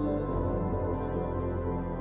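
Ambient background music with long held notes.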